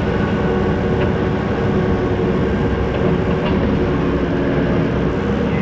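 Skid steer engine running hard under load as it pulls a chained pickup truck out across ice, a steady mechanical drone with several held tones.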